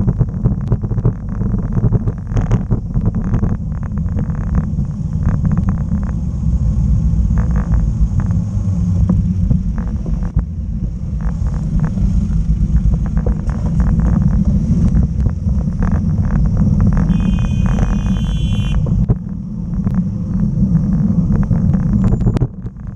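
Wind rumbling over the microphone of a bike-mounted camera while riding, with frequent short knocks and rattles as the bicycle rolls over wet road and paving. A high ringing tone sounds for about two seconds some two-thirds of the way through.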